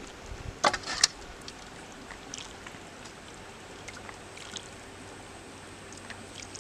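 A steel ladle taps a couple of times as gravy is served over rice, about a second in. After that there is only a faint, steady outdoor background with a low hum.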